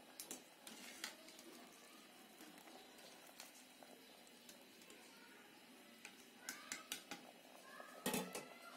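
Pasta frying in hot oil with a faint, steady sizzle, while a metal wire skimmer clicks and scrapes against the pan several times, loudest near the end.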